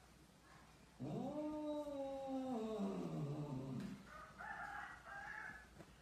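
Domestic cat's long, drawn-out yowl, rising slightly and then falling over nearly three seconds: an annoyed cat. Two short, higher, noisier calls follow.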